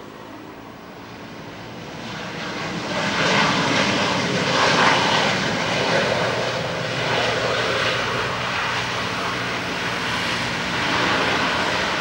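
Boeing 737-800's CFM56-7B jet engines on the landing roll, swelling to a loud rushing roar about three seconds in and holding there, as reverse thrust is applied to slow the airliner.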